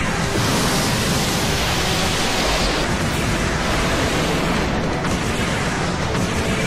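Sci-fi anime battle sound effects of a massive beam blast and explosions: a loud, continuous rush of noise over a deep rumble, with a brighter hiss for the first three seconds or so.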